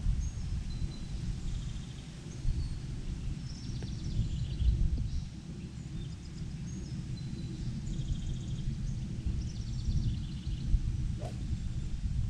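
Wind rumbling on the microphone, with birds singing short repeated trills. About eleven seconds in, one sharp click of an 8-iron striking a golf ball off the tee.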